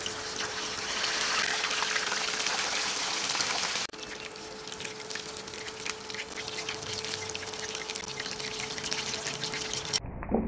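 Chicken pieces deep-frying in hot oil in a stainless steel pan: a dense sizzle full of small crackles and pops, with a faint steady hum underneath. The sizzle drops somewhat in level about four seconds in. The chicken was already simmered through, so this is a short fry to brown the skin.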